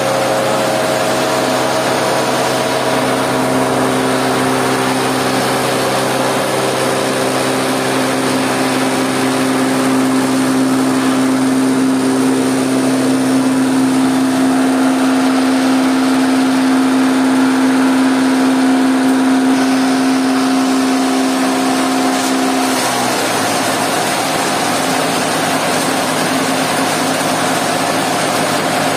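A small hammer-mill stone crusher, driven by a three-phase electric motor, running steadily: a hum and whine over a dense noise. The hum changes about three-quarters of the way through.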